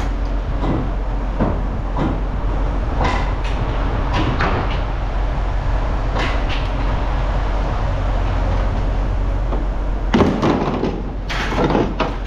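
Pieces of scrap metal being tossed onto a pile: a scattered series of clanks and knocks, with a busier burst of them near the end, over a steady low hum.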